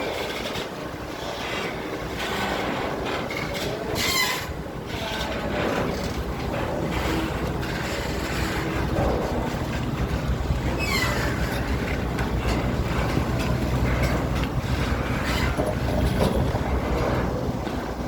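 A steady low engine rumble that sets in about six seconds in, mixed with clatter and scattered short noises.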